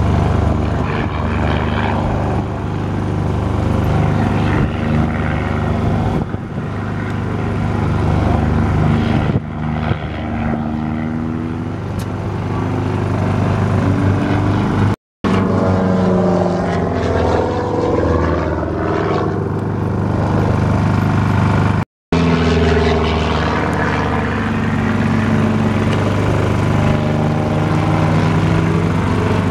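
Aerobatic biplane's piston engine and propeller during a display, the engine note sliding up and down in pitch as the aircraft climbs, loops and passes overhead. The sound cuts out for a moment twice, about halfway through and again a few seconds later.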